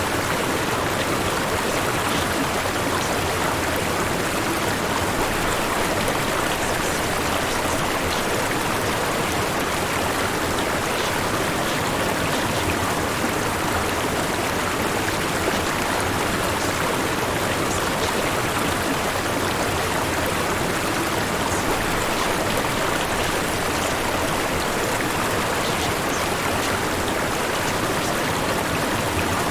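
Steady white noise that does not change in level, with most of its energy in the middle range and no breaks or separate events.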